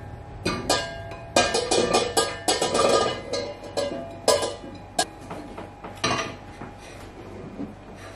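Chopped butternut squash pieces tumbling from a bowl into a metal saucepan: a rapid clatter of knocks for a few seconds, then a few single knocks, over soft background music.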